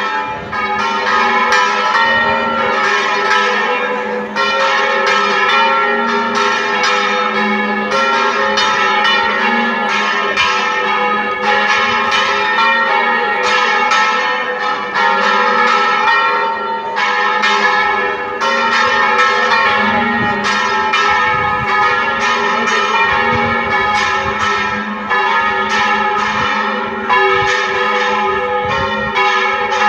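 Church bells of a Spanish parish bell tower in a volteo general: all the bells swung over full circle together, ringing continuously in quick, overlapping strokes with no pause.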